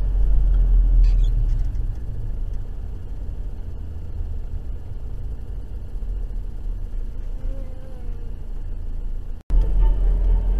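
Steady low rumble of a car driving, heard from inside the cabin, a little louder for the first second or so. It cuts out for an instant about nine and a half seconds in and resumes.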